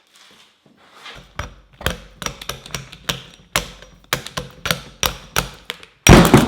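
Rapid repeated hammering blows striking a 25-pound weight, about two to three strikes a second, ending in a much louder burst of noise about six seconds in.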